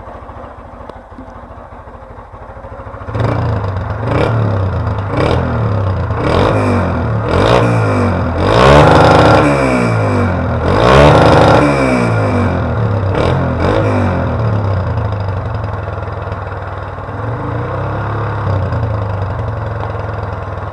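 Honda CG 150 Titan's carbureted single-cylinder four-stroke engine through an aftermarket Roncar popping exhaust: idling, then blipped about once a second with sharp cracks from the exhaust. Two longer revs rise and fall about nine and eleven seconds in, before it settles back to a steady idle.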